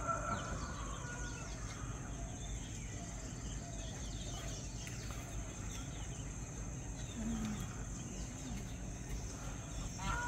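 Steady high-pitched drone of insects, with scattered bird chirps and call notes over it and a low steady rumble underneath.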